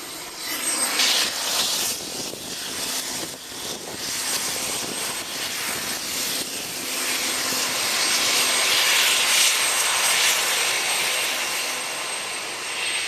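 National Guard helicopter's turbine engines and rotor running during takeoff: a loud rushing noise with a thin, steady high whine, swelling and easing in waves.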